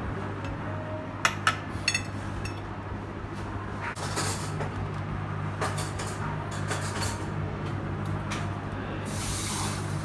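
A metal fork clinking sharply on a ceramic plate several times about a second in, over the steady low hum of a running appliance, with a few short hissy scrapes later on.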